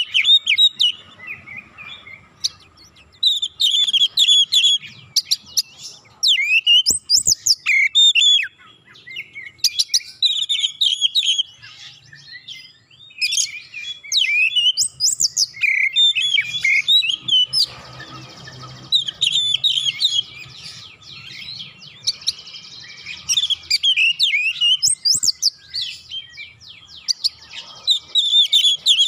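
Oriental magpie-robin singing in full, continuous song: fast runs of sweeping whistled and chattering notes delivered in bursts with short pauses.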